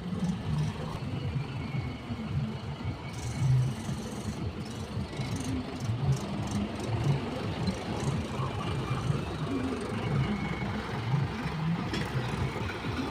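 Heavy machinery's diesel engine running, a low throb that rises and falls unevenly.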